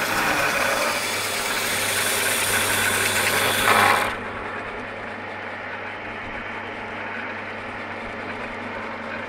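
Axminster AS609 belt and disc sander running, its sanding belt grinding a piece of wood with a loud, rough hiss for about the first four seconds. The wood is then lifted off and the machine runs on free with a steady motor hum.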